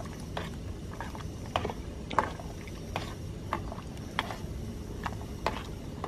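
A metal utensil clinking against the side of a stainless steel pot as boiling spaghetti is stirred. There is a sharp tap roughly every half second, unevenly spaced, over a steady low rush.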